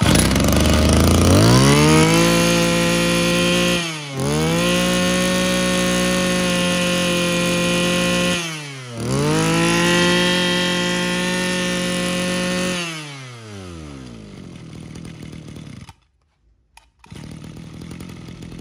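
Mitsubishi TL23 23cc two-stroke brush cutter engine running, revved up to full throttle and held there three times with a brief drop in speed between each, then let back down to idle.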